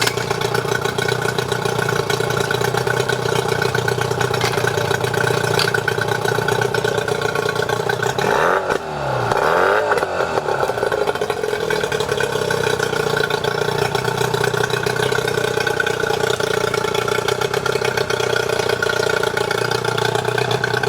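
2009 Yamaha 15 hp two-stroke outboard motor running steadily, with the engine speed briefly swinging down and back up about nine seconds in.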